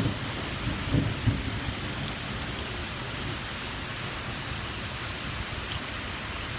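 Steady rain falling hard during a thunderstorm, an even hiss throughout, with a few low thumps in the first second and a half.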